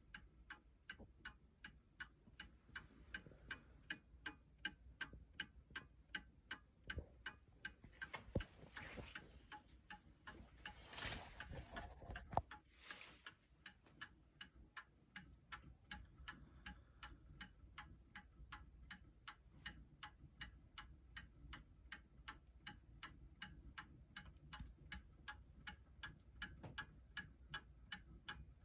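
Antique Seth Thomas 5-bell Sonora Chime clock ticking quietly and evenly, with no chime yet. About a third of the way through there are a few seconds of noise and a single sharp knock.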